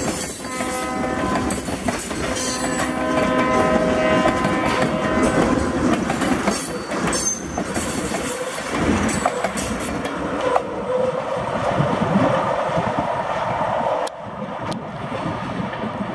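Diesel locomotive horn sounding a chord of several notes in a few long blasts over the first five seconds or so, over the steady rumble and clickety-clack of loaded tank car wheels over rail joints. About 14 seconds in the clatter drops off sharply as the last car passes, leaving the train rumbling away.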